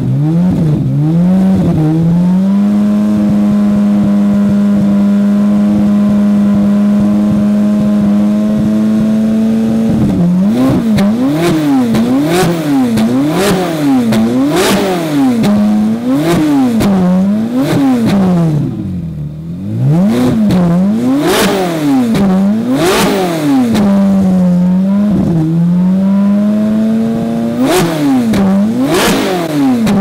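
Ferrari 458 Italia's 4.5-litre flat-plane-crank V8 revved while stationary through a catless downpipe and valved Fi Exhaust muffler with the valves closed. It is held at a steady raised rpm for about eight seconds, then blipped up and down in quick succession, with a couple of brief dips toward idle, a short steady hold near the three-quarter mark, more blips, and a fall back at the end.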